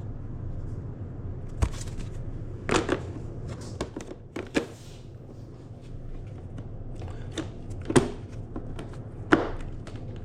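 Plastic airbox parts being fitted back onto a dirt bike: a scattered series of sharp plastic clicks and knocks, about seven, over a steady low hum.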